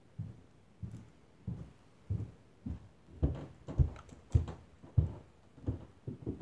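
Footsteps of a person walking, a steady series of dull thuds about every 0.6 s, growing louder from about three seconds in as the walker comes closer.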